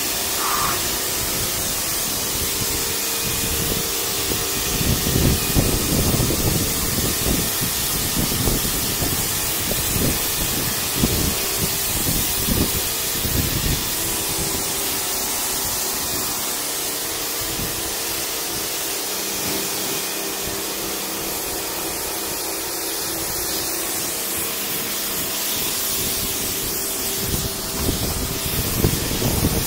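Kärcher electric pressure washer running: a steady hiss of the water jet from the spray lance over the steady hum of the pump motor, as the jet is played over tiles and a metal surface. Irregular bursts of low rumble come through in the first half and again near the end.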